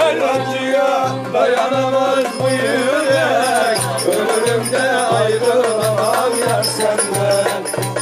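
Violin playing a lively Turkish folk dance tune (oyun havası), its melody sliding and ornamented, over a steady low beat about twice a second.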